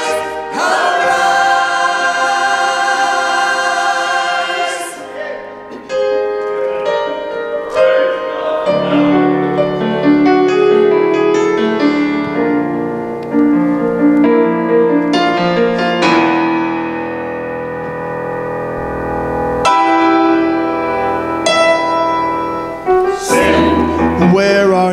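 Church choir holding a sustained chord that ends about five seconds in, followed by a piano playing a slow instrumental passage with held chords.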